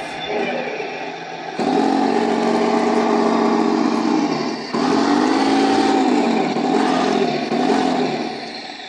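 Heng Long Tiger 1 RC tank's TK 7.0 sound unit playing its simulated engine sound through the newly fitted speaker, a test of the replacement. The engine sound jumps louder about a second and a half in, revs up and back down in pitch in the middle, and eases off near the end.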